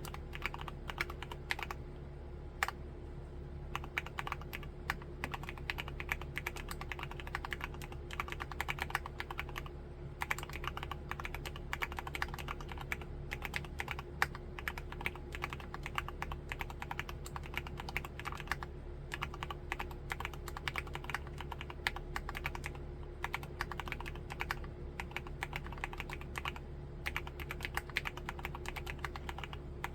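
Typing on an MMstudio Class80 R2 mechanical keyboard with Cherry MX2A Black linear switches: a fast, continuous run of keystrokes that thins to a few single strokes about two to four seconds in, then picks up again.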